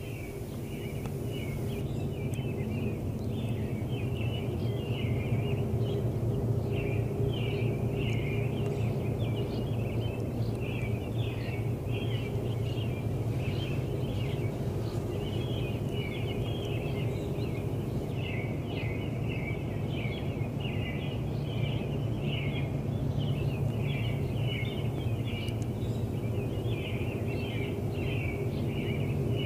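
Birds chirping continuously over a steady low rumble.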